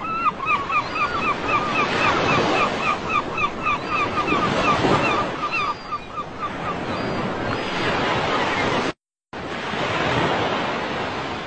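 Surf washing and breaking on a beach. For the first six seconds a bird calls over it in a quick run of short repeated notes, about four a second. The sound cuts out for a moment about nine seconds in, then the surf resumes.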